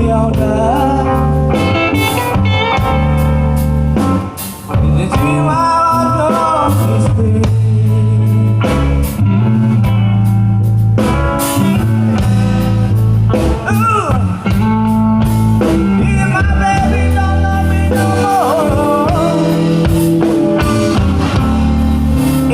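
A band playing a slow blues jam: electric guitar bending notes over a steady bass line and drums.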